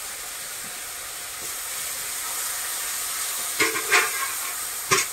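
Ground spice paste (masala) sizzling and hissing steadily in hot oil in a kadai as it is sautéed until the oil separates. A spatula scrapes and knocks against the pan in a few quick strokes near the end as the masala is stirred.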